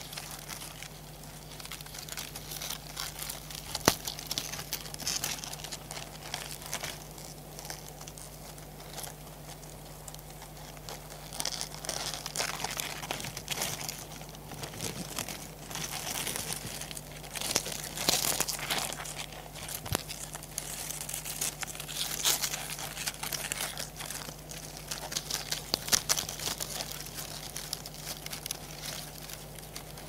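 Land hermit crabs crawling over coconut palm leaves close up: irregular rustling and crackling, in waves of louder activity, with scattered sharp clicks, over a steady low hum.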